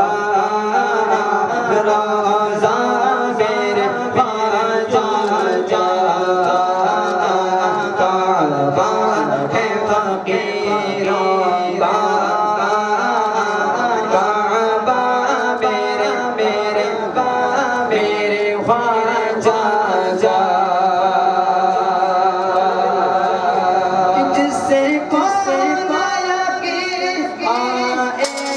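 A solo male voice singing a naat, an Urdu devotional song in praise of the Prophet, into a microphone, with long held, melismatic lines that carry on without a break.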